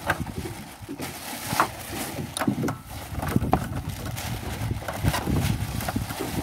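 Lumps of charcoal clattering and knocking together as they are tipped from a plastic bag into a metal grill box and shifted by hand, in many short irregular knocks.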